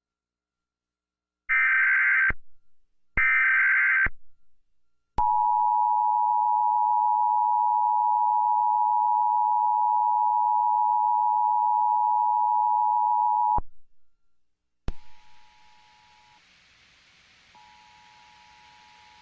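Emergency Alert System header data bursts, two short harsh screeches about a second apart, followed by the EAS two-tone attention signal, a steady 853/960 Hz tone held for about eight seconds that cuts off sharply. A click follows, then faint hiss in which the two-tone signal comes back quietly.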